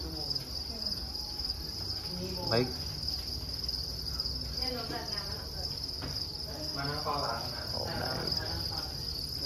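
Feeder crickets chirping in a continuous, high-pitched trill.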